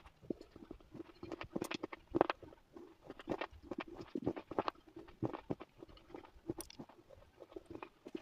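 Slate pencils being bitten and chewed close up: a run of sharp, irregular crunches and clicks, several a second.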